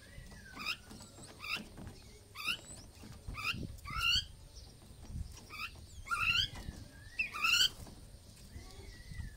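Caged mynas calling: a string of short, sharp rising squawks, roughly one a second, with a break about five seconds in. Thin slurred whistles sound between them.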